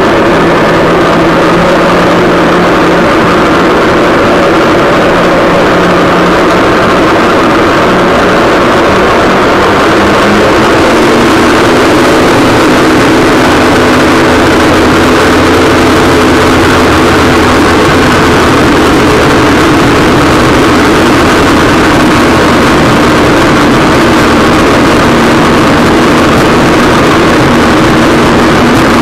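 Waverunner (personal watercraft) engine running steadily, close to a camera mounted on the craft, over a constant rush of water and wind noise. About ten seconds in, the engine note steps up to a slightly higher speed and holds there.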